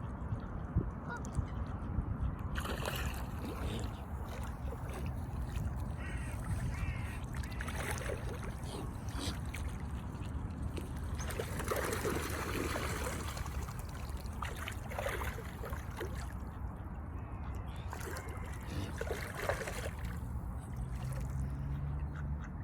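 A swan giving honks at intervals, several separate calls aimed at Canada geese, over a steady low hum.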